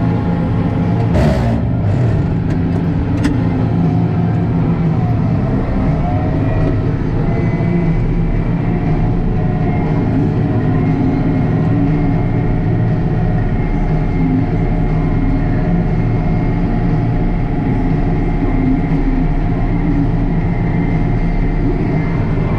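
International Harvester 1586 tractor's six-cylinder diesel engine running steadily, with a short sharp clatter about a second in.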